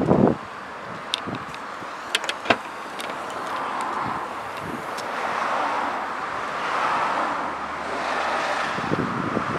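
Wind buffeting the microphone, with gusts at the start and near the end. A few sharp clicks between about one and two and a half seconds in, from the Skoda Octavia estate's tailgate being unlatched and lifted open.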